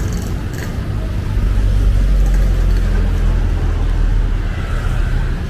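Street traffic: a motor vehicle's low engine rumble swells about a second in, holds, then eases off near the end as it passes.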